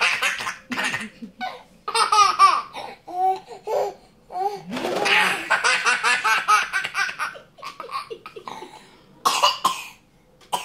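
A baby belly-laughing: high-pitched bursts of laughter with short pauses between them, one long run of laughs about halfway through, tailing off near the end.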